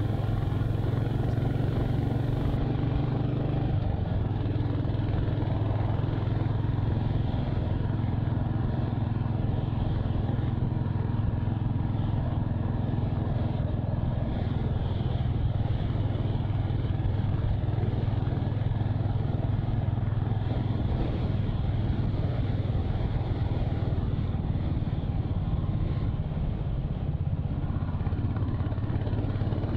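Royal Enfield Hunter 350 motorcycle under way at a steady speed, its single-cylinder engine holding an even, unchanging note throughout.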